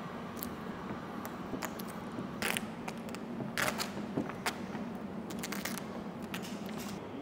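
Vinyl wrap film being worked onto a car bonnet by hand: scattered crackles and clicks, with a few longer scraping rustles about a third and half of the way in, over a steady low hum.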